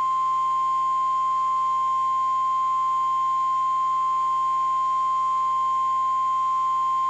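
NOAA Weather Radio's 1050 Hz warning alarm tone: a single loud, steady tone held without change, the signal that a warning message, here a tornado warning, is about to be broadcast.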